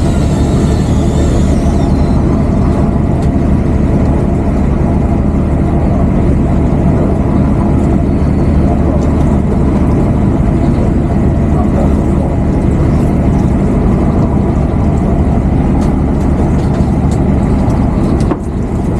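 A boat's engine running steadily, a constant low drone that dips briefly near the end.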